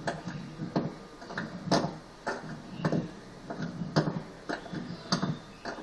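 A run of sharp, uneven knocks or taps, about two a second.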